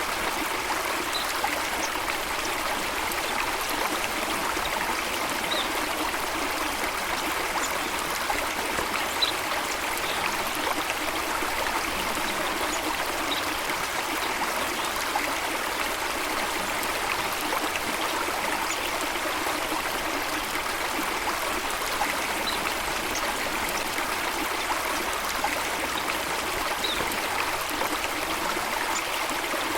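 Steady rush of running water. A few faint, short, high bird chirps come every few seconds.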